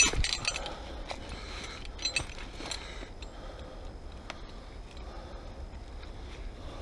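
Footsteps and rustling in dry leaf litter as a person moves over a rocky forest floor, with a few sharp clicks and rustles in the first second and a couple more about two seconds in. A low, steady rumble sits underneath throughout.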